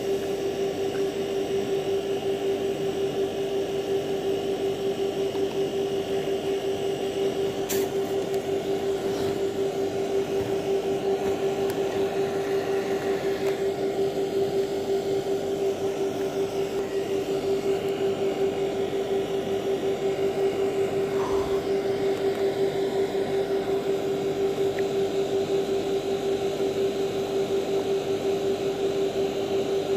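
Steady drone of a water pump's motor running, a constant hum. One sharp click about eight seconds in.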